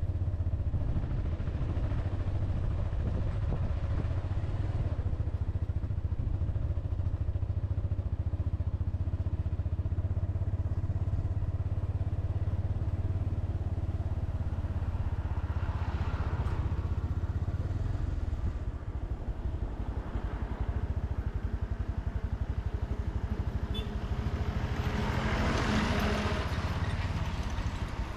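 Motorcycle engine running steadily while riding, a low even drone. Louder rushes of noise come about halfway through and again, more strongly, near the end.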